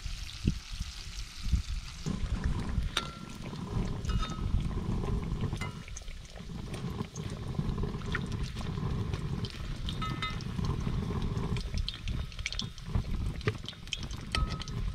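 Fish pieces frying in a pan of hot oil, with a metal spoon clinking against the pan several times as the pieces are turned and lifted out.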